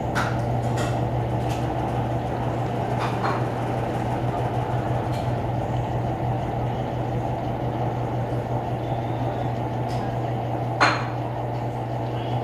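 Electrolux LTE12 12 kg washing machine running with a steady low hum, broken by a few sharp clicks, the loudest near the end.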